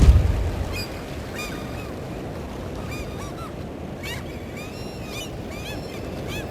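Many short, arched bird calls scattered over a steady rushing background ambience, after the tail of a deep boom fades in the first second.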